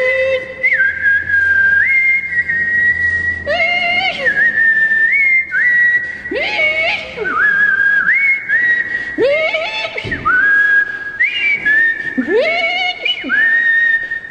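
Whistling: a slow line of long, high held notes, each slid up into from below, about one note every second or two. A few lower swooping calls rise and fall underneath.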